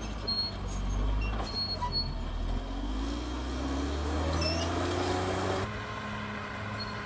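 CAT D6R XL bulldozer's diesel engine running under load, its pitch rising as it revs up and then dropping back suddenly about two-thirds of the way through.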